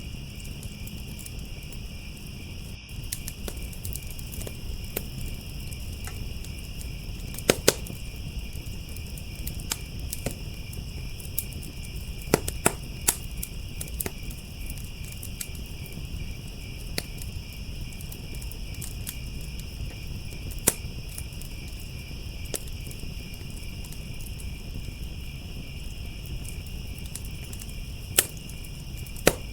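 Wood fire crackling, with sharp pops scattered irregularly throughout, a few much louder than the rest. Underneath runs a steady high chorus of chirping crickets and a low steady rumble.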